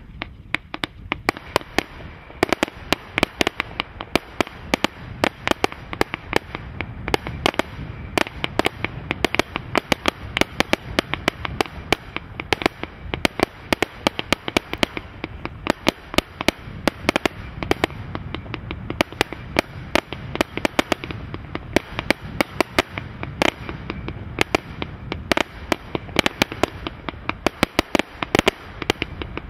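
Celtic Fireworks Blitzkrieg firework barrage firing continuously: a rapid, unbroken run of sharp shots and bursts, several a second.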